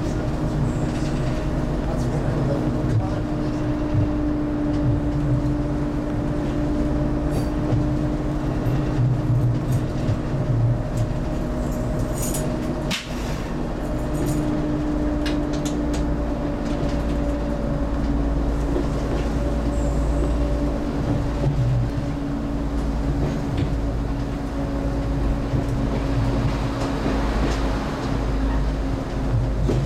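Single-car, two-engine diesel multiple unit running steadily, heard from the cab: a continuous diesel engine drone with wheel and rail rumble beneath it and a few brief clicks about halfway through.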